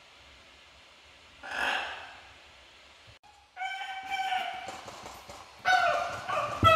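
Blue-and-gold macaw calling: a short harsh squawk about a second and a half in, then two longer, pitched calls from about three and a half seconds in, the second the loudest.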